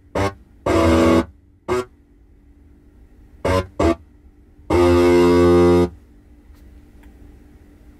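Distorted electric guitar sound from the Tesla Trax music app, played one note at a time on its touchscreen keyboard through the car's speakers: six separate notes, mostly short, with one held about a second near the middle.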